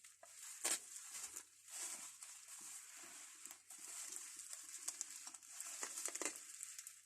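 Handling noise: rustling with scattered light taps and a few sharper clicks as old hand tools and their packaging are moved about, over a steady faint hiss.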